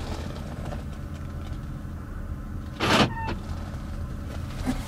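BMW X5 E53's engine idling, heard inside the cabin as a steady low hum, with one sharp clunk about three seconds in.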